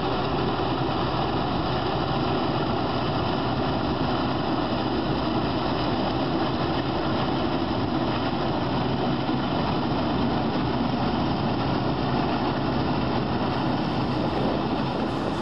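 Diesel engine of a John Deere four-wheel-drive tractor running steadily under load while it pulls a loaded manure tanker and injector through the field.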